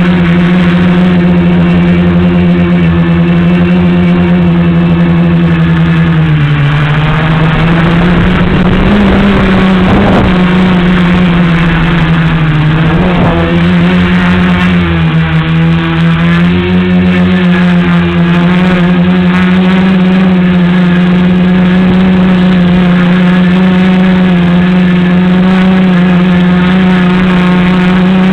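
Tricopter's electric motors and propellers buzzing in flight, a steady pitch that dips briefly about six seconds in and again around twelve seconds, with short rises in between.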